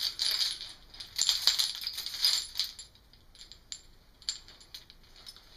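Small hard objects rattling and jingling, shaken in two bursts, the second longer, then a few scattered clicks.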